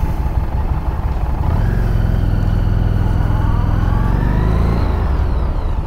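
Harley-Davidson motorcycle engine pulling through a curve: it revs up about a second and a half in, rising in pitch, then drops back near the end as the throttle is rolled off to brake.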